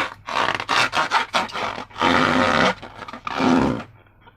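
Slime and balloons being handled, giving rubbing and scraping noises: a quick run of short strokes, then two longer drawn-out ones.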